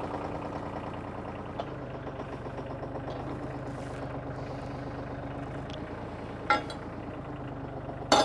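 New Holland tractor engine idling steadily. Two sharp knocks come near the end, about a second and a half apart.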